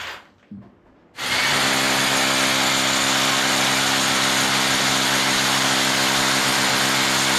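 Electric drill boring a hole through a wall: it stops briefly right at the start, starts again about a second in, and then runs steadily under load.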